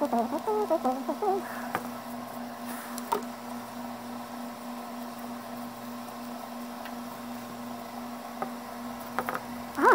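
A few light clicks and taps from a small plastic applicator and containers being handled, over a steady low hum, with a brief murmur of voice at the start.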